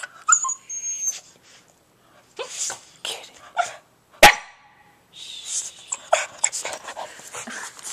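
Boston Terrier giving short barks and huffs in scattered bursts, the sharpest and loudest a little past the middle.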